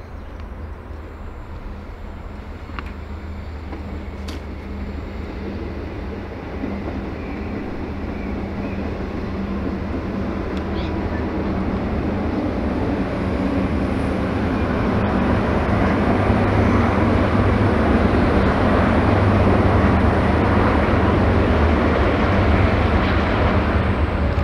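Diesel freight train approaching: a low, steady locomotive engine hum and rising wheel-and-rail noise build up over about fifteen seconds, then hold at full level as it comes by.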